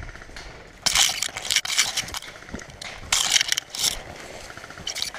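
Close rustling and crunching noise in two bursts about a second long each, the first about a second in and the second past the middle.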